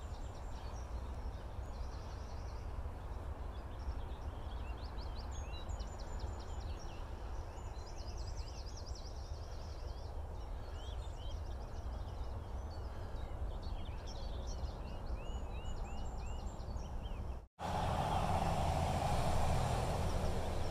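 Small birds chirping and singing over a steady low rumble of distant motorway traffic. About three-quarters of the way through, the sound cuts out for an instant and a louder rushing noise takes over.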